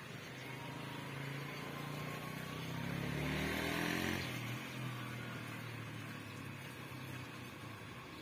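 Engine of a passing motor vehicle: a low hum that grows louder and rises in pitch to a peak about four seconds in, then drops back and fades.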